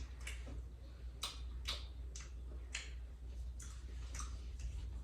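A person chewing a crunchy chocolate candy bar: irregular soft clicks and crunches, roughly eight of them, over a faint low steady hum.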